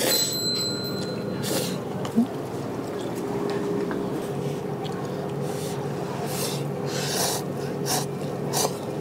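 A person eating noodles: several short, noisy slurps, the longest about seven seconds in, over a steady low hum.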